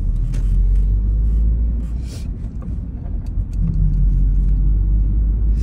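Steady low road and engine rumble of a car being driven, heard from inside the cabin.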